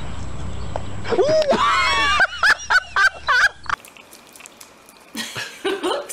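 A quick run of high-pitched squealing calls that swoop up and down in pitch as a monkey and a puppy scuffle, over wind rumble on the microphone. The calls stop suddenly at a cut, and soft voices come in near the end.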